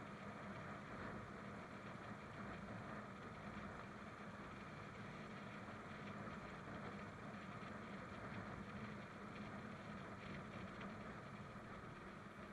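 Royal Enfield motorcycle engine running at a steady cruise, low and even, mixed with wind and road noise.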